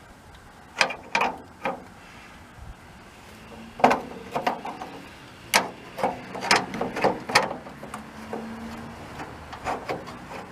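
Irregular metallic clicks and clanks of the rear cargo door latch mechanism and its rods on a splitwindow VW bus being handled and fitted into place, some in quick little clusters.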